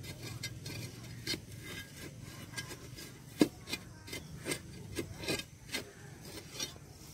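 A wooden digging stick jabbing and scraping into dry soil while a planting hole is dug, giving irregular knocks and scrapes, the loudest knock about three and a half seconds in.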